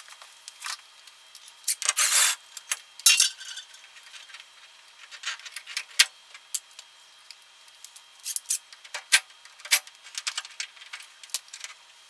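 Handling noise from taking the sheet-metal access cover off the lower element of an electric water heater and pushing back the fiberglass insulation: scattered small clicks and light metallic clinks, with brief rustling scrapes about two and three seconds in.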